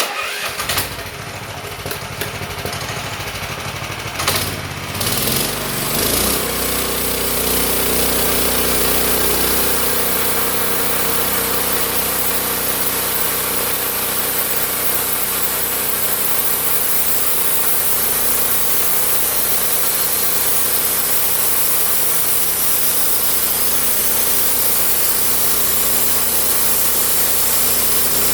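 Homemade sawmill's engine starting up, revving for a few seconds, then running steadily at speed.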